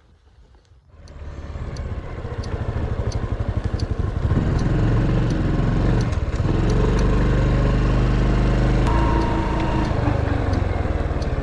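Honda Super Cub 110's single-cylinder engine running as the bike gets under way, rising about a second in and growing louder over the next few seconds, then holding steady at riding speed with wind on the microphone.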